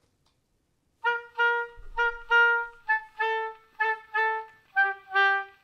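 Solo oboe playing a melody of short, separate notes, coming in about a second in, the line stepping down in pitch near the end. It is played with the crisp tonguing taken out.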